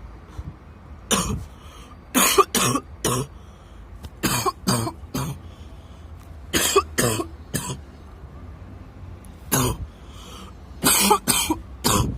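A person in a coughing fit: harsh coughs in clusters of two to four, about fifteen in all, with short pauses between the clusters. The uploader puts the fit down to a dust allergy.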